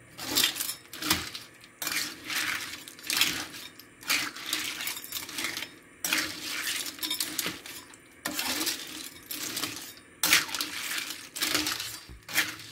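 Freshwater rice-field snail shells (tutut) clattering and clinking against an aluminium wok and a metal spatula as they are stirred in their broth. The stirring comes in strokes of rattling about every two seconds, with short pauses between them.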